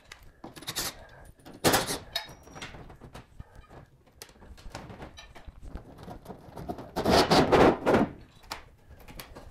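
Demolition work on a ceiling light box: a run of knocks and thunks as it is pried and pulled loose. Two louder rough bursts stand out, one about two seconds in and a longer one of about a second about seven seconds in.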